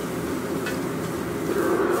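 Restaurant wok burner running with a steady roar under a carbon-steel wok as minced meat fries in it, with one clink of the metal ladle against the wok less than a second in.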